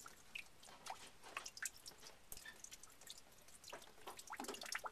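Faint, irregular water drips from an opened PEX hot water line, fed by cold water leaking back through a tub faucet's valves.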